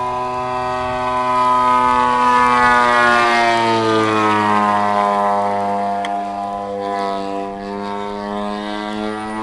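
Giant-scale radio-controlled model airplane's engine and propeller droning steadily as it flies overhead. It is loudest early on, and the pitch drops a few seconds in as the plane passes and moves away.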